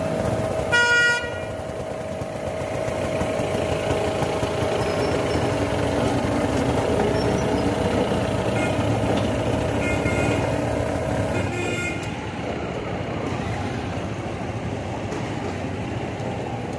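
Vehicle horn honking about a second in, with shorter toots again between about nine and twelve seconds, over steady street traffic noise and a motor's steady hum that stops near twelve seconds.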